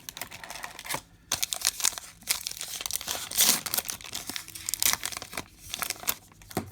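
Baseball card pack wrapper being torn open and crinkled by hand, a run of crackling that is loudest about halfway through.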